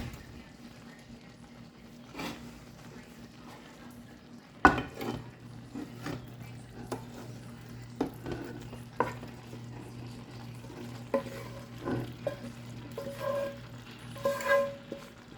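Chicken pieces being spooned into a clay pot of rice cooked almost dry, with a spoon knocking and scraping against the pot at irregular intervals over faint cooking sizzle. The loudest knock comes a little under five seconds in.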